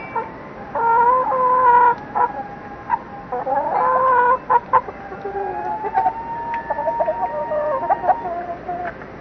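Backyard chickens clucking and calling in a run of short calls, then one long drawn-out call of about two seconds in the second half.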